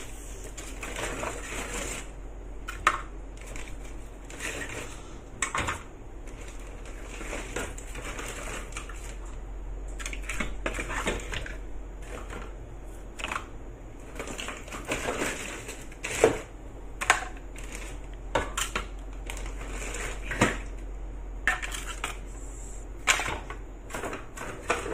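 Kitchen handling sounds around a pot: scattered sharp clicks and knocks at irregular intervals, a few of them louder, over a steady low hum and hiss.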